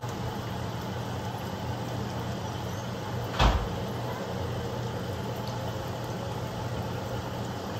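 Onion fritters sizzling steadily as they deep-fry in oil in a cast-iron skillet, with a single short thump about three and a half seconds in.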